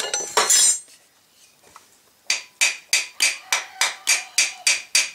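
Hammer tapping lightly and steadily on a die-cast Autolite carburetor body, about three taps a second starting a little past halfway, to send vibration into a seized, penetrant-soaked mixture screw and free it. A short clatter comes right at the start.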